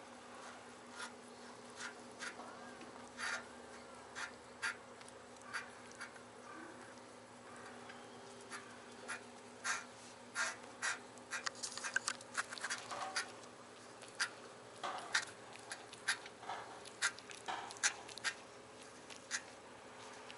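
Close-up sounds of a cat being petted: irregular soft clicks and ticks right at the microphone, coming in quicker clusters in the second half, over a faint steady hum.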